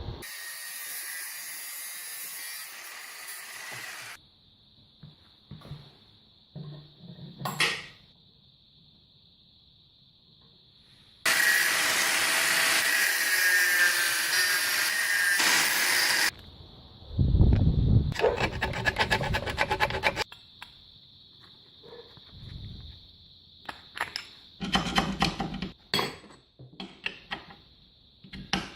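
Metalworking tool sounds on a steel rod held in a vise, in several short edited bursts. There is sawing or rasping of metal, a loud steady stretch of a few seconds in the middle, a run of quick regular strokes, and scattered knocks and clicks in between.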